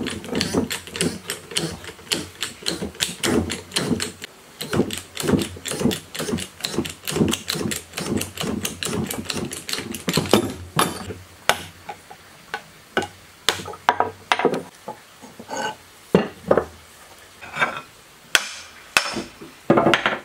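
Wrench handle on a three-jaw gear puller clicking in a steady rhythm, about three clicks a second, as the puller is cranked to draw the belt pulley off an old electric motor's rotor shaft. From about halfway, it gives way to scattered, louder metal knocks.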